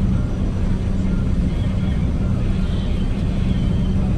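Steady low drone of a passenger boat's engines, heard inside the seating cabin, with a constant hum and no change in pitch or level.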